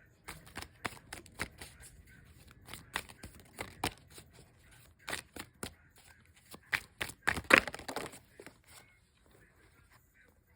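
A deck of tarot cards being shuffled and handled: irregular snaps and slaps of cards, busiest about seven seconds in and stopping well before the end.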